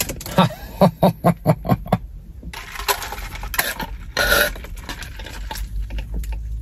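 Close-up chewing of a crispy breaded chicken burger: a quick run of crunches in the first two seconds, then softer crunching with a louder crunch a little past the middle.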